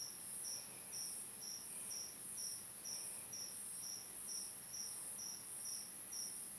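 Crickets chirping at night: an even, steady rhythm of about two short high chirps a second over a continuous high-pitched insect trill.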